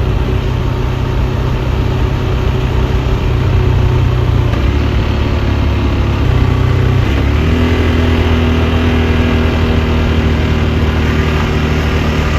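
KTM 390 Adventure's single-cylinder engine running steadily under way, its note shifting about four and a half seconds in and settling to a new steady pitch about seven seconds in.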